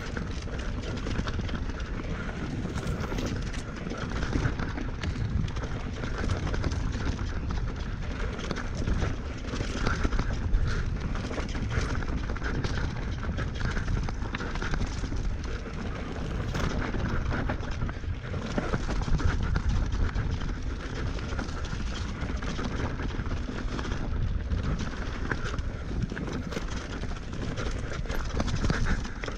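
Mountain bike ridden fast down a rough trail: tyres on dirt and rock, with the chain and bike rattling over the bumps in a steady run of clicks and knocks, and wind rushing on the microphone.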